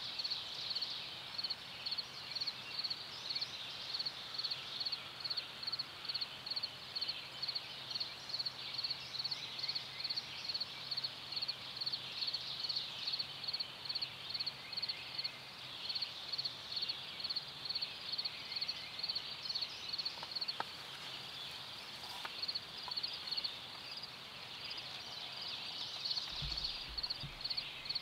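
A high-pitched chirp repeated evenly about three times a second from a small animal calling steadily in the field, over faint outdoor hiss. Near the end come a few low thumps of camera handling.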